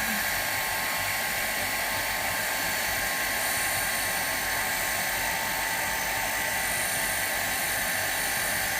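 Handheld hair dryer running steadily: a rush of blown air with a constant motor whine.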